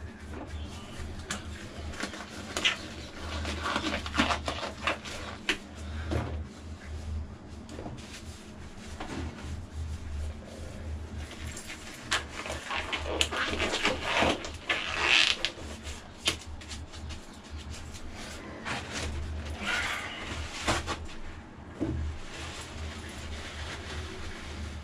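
Irregular clicks, knocks and rustling scrapes of hand work at an engine's flywheel housing, with gloved hands, rags and tools being handled. An on-and-off low thudding from movement runs underneath.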